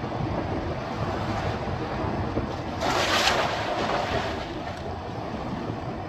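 Steady road and wind noise of a car driving on the highway, with a louder hiss swelling briefly about three seconds in.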